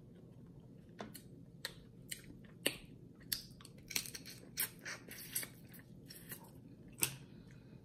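Close-up mouth sounds of eating crab leg meat: lips smacking and sucking with chewing, in a dozen or so sharp, unevenly spaced clicks.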